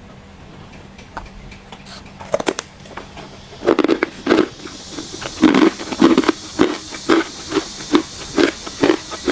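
Close-miked chewing of hard ice, crunchy and crackling. After a few quiet seconds with faint clicks, the crunches start a little past a third of the way in and then come steadily, about two a second.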